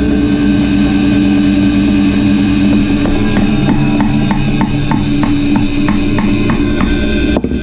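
A bandsaw runs steadily. Midway, a claw hammer taps on a black mulberry burr beside the blade, about three light knocks a second for several seconds. A single sharp knock comes near the end.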